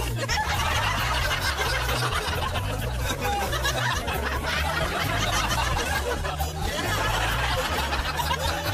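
Chuckling and laughter over background music.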